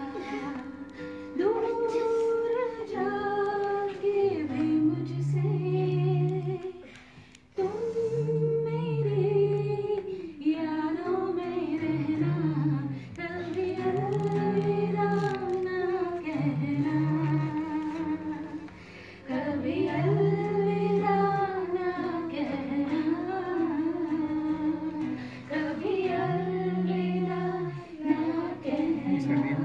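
A woman singing a slow melody in long held phrases, accompanying herself on acoustic guitar, with a short break between phrases about seven seconds in.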